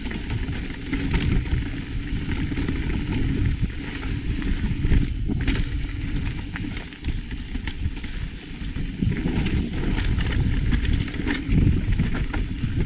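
Mountain bike ridden over a rough dirt trail: heavy wind rumble on the microphone, tyres crunching, and frequent clicks and rattles from the bike over the rough ground.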